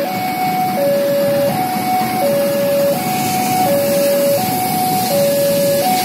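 Railway level-crossing warning alarm sounding its electronic two-tone signal, a lower and a higher tone taking turns about every three-quarters of a second, which warns that a train is crossing the road. Under it runs the steady rumble of a diesel locomotive passing over the crossing.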